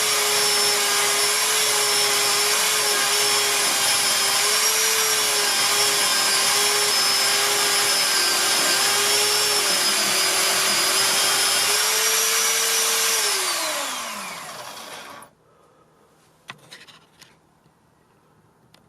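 Electric polisher motor running with a steady high whine. About 13 seconds in it is switched off, and the whine falls in pitch as it spins down, stopping about two seconds later. A couple of faint clicks follow.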